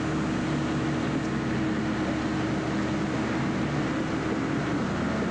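A large engine running steadily, droning at an even pitch throughout.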